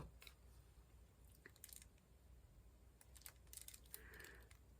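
Near silence, with a few faint light clicks of a diamond painting pen tapping square resin drills onto the canvas.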